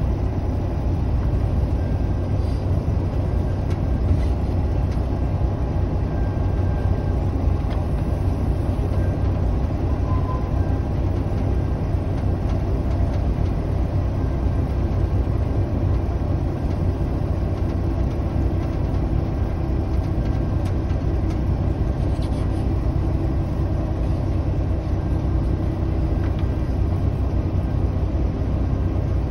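Diesel shunting locomotive's engine running steadily, heard from inside its cab as the locomotive moves, with a few faint ticks here and there.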